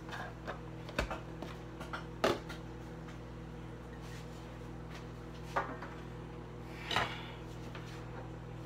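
A few short knocks and clinks as a knife, a plate and a butter wrapper are handled on a kitchen counter, over a steady low hum. The loudest clatters come near the middle and about seven seconds in.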